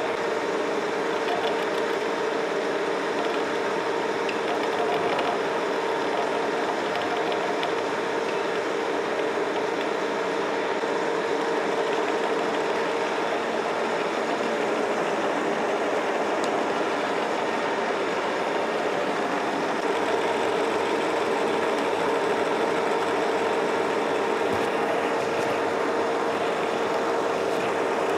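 Engine lathe running under power feed, its carbide tool taking a turning cut along a spinning metal shaft held between centres: a steady machine hum with a constant tone.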